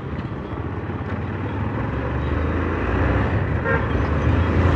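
Hero ZMR motorcycle riding in traffic, its engine rumble and wind noise growing louder as it picks up speed, with a short horn beep about three and a half seconds in.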